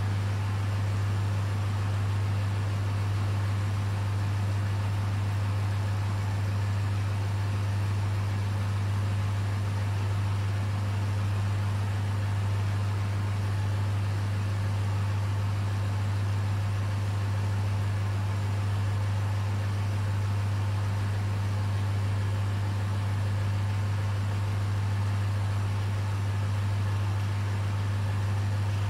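Aquarium pumps and filtration running continuously, giving a steady low hum with a faint hiss over it.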